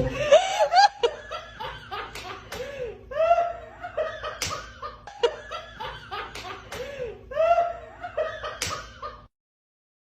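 A person laughing hard in repeated bursts, with a few sharp smacks or slaps among the laughs; the sound cuts off to silence near the end.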